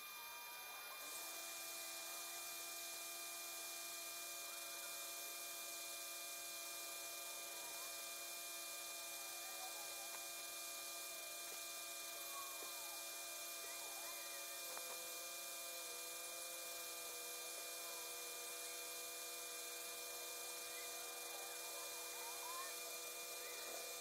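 Faint steady hum of several held tones over a light hiss, with a few faint wavering chirps.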